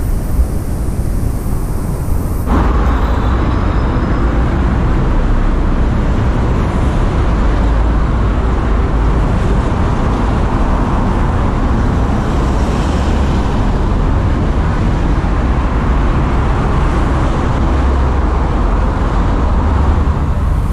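Steady city street traffic noise with a heavy low rumble, changing abruptly about two and a half seconds in to a louder, fuller wash.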